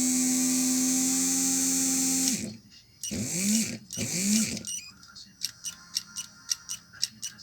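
Hammer PLI12 cordless drill's small 12 V DC motor, run on its own from a bench power supply, whining at a steady pitch until it cuts off a little over two seconds in; it is then pulsed twice briefly, each time spinning up and down, followed by a series of light clicks. The technician suspects something is wrong inside the motor.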